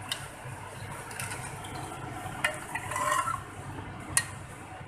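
Metal ladle stirring thick gravy in a metal pot, with about three sharp clinks of the ladle against the pot and a brief scraping stir about three seconds in.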